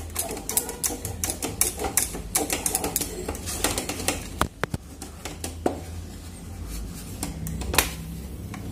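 A utensil scraping and tapping against a cooking pan as a thick dough of milk powder, ghee and flour is stirred, in irregular scrapes and clicks that are dense at first and thin out in the second half, over a low steady hum. The dough is being cooked until it comes away from the pan.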